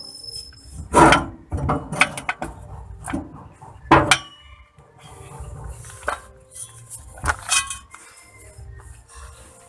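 Metal hand tools clinking and knocking against metal in an irregular series of sharp strikes, the loudest about one second and four seconds in.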